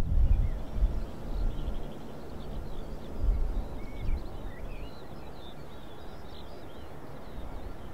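Gusts of wind buffeting the microphone, with small birds chirping in the background.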